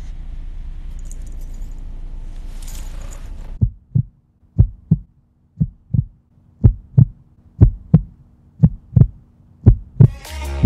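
Low steady rumble inside a moving bus, then, after a cut, a heartbeat sound effect: paired low thumps about once a second over a faint steady hum. Electronic music starts near the end.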